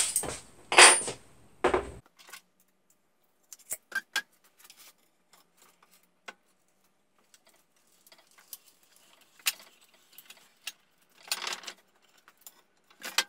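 Small metal hardware (bolts, washers and threaded inserts) being handled on a wooden workbench: a louder clatter at the start, then scattered light clicks and clinks.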